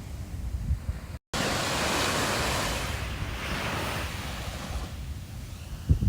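Sea waves washing onto the shore, with wind buffeting the microphone. The sound drops out for a moment about a second in, then a louder wash of surf comes in.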